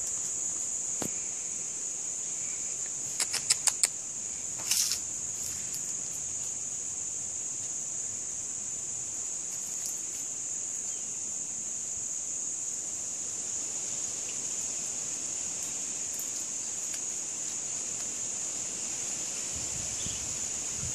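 Steady high-pitched insect buzz, an unbroken drone. A quick run of four or five sharp clicks comes a little over three seconds in, and a short rustle follows about a second later.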